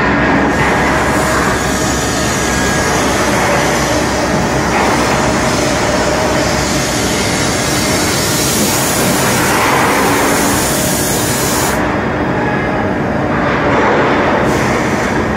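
Automatic foundry sand-moulding line running: loud, steady machine noise with a constant hum and a high hiss that drops away about three-quarters of the way through and comes back near the end.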